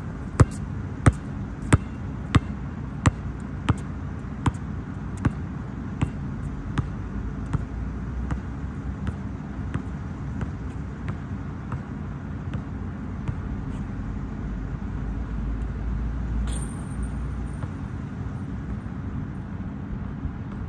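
Basketball being dribbled on an outdoor court, about three bounces every two seconds. The bounces grow steadily fainter as the dribbler moves away, over a steady low background rumble.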